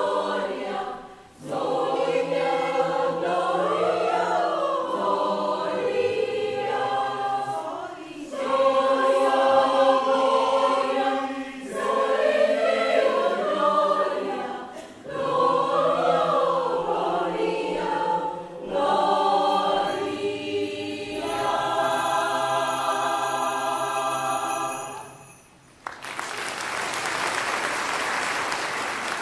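Mixed choir of men's and women's voices singing in phrases separated by short breaths, closing on a long held final chord that cuts off cleanly. Applause breaks out right after the final chord, near the end.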